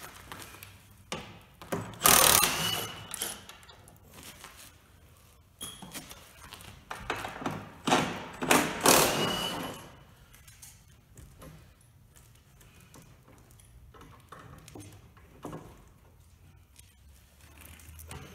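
Cordless impact wrench running in two bursts, about two seconds in and again about eight seconds in, backing lag bolts out of a wooden crate pallet, with small handling knocks and clicks between.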